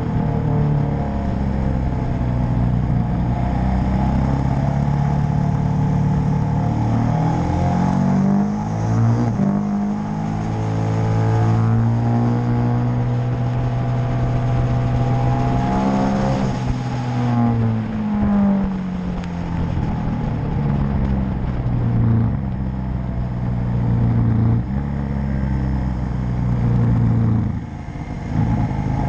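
KTM 1290 Super Adventure S's V-twin engine running at track speed, its note rising and falling with throttle and gear changes, over steady wind rush.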